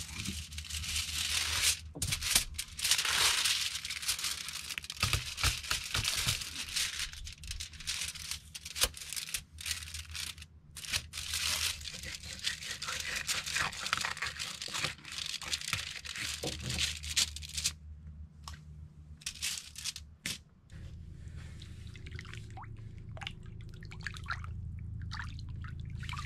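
Mangrove snapper being filleted with a knife on a sheet of aluminum foil: foil crinkling and rustling with sharp clicks as the fish is cut and handled. Near the end it goes quieter, with water dripping and splashing as the fish is rinsed over the side of the boat.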